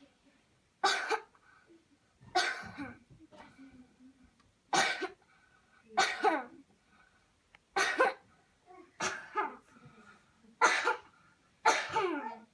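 A person coughing deeply on purpose, about eight forceful coughs spaced a second or two apart. These are deliberate deep coughs meant to clear the chest.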